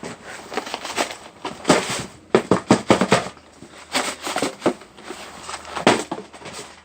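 Irregular sharp cracks and impacts, some in quick clusters: a container of frozen milk being smashed and broken up, the frozen milk crunching as it is struck.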